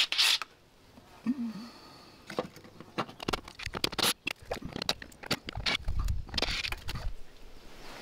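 Cordless drill-driver bit scraping and clicking irregularly against the screws of a dryer vent cover, with a low rumble in the second half; the screws are plain drywall screws, not outdoor rated.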